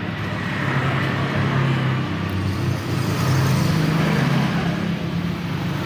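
A motor vehicle engine running with a low, wavering hum, swelling over the first second and then holding steady.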